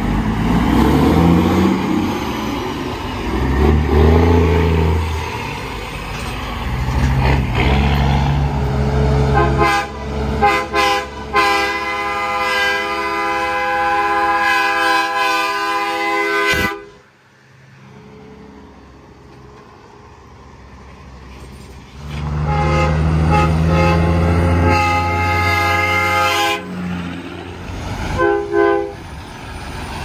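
Train horns fitted to semi trucks blowing, the longest a multi-note chord held for several seconds that cuts off abruptly about halfway through, with diesel truck engines revving under them. Near the end an engine runs again and the horn gives a couple of short blasts.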